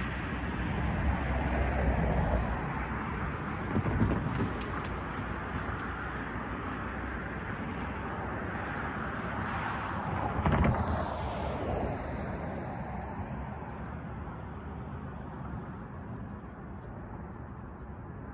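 Vehicles passing close by as a steady rushing noise, swelling louder a few times, with a falling pitch after the loudest pass about ten seconds in, then slowly fading.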